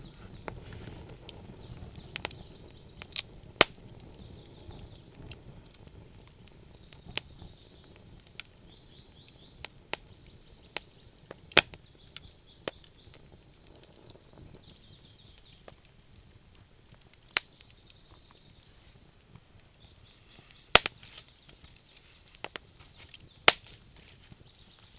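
Wood fire crackling, with sharp irregular pops and snaps over a low background hiss. Faint trilled chirps of small birds come in at intervals.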